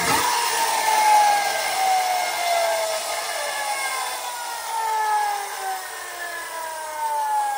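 1950s Yonezawa friction-powered tin toy police car's mechanical siren, spun up by a quick scrape of the wheels pushed along the table right at the start. Then a whirring siren wail that begins high and slowly sinks in pitch as the friction flywheel winds down.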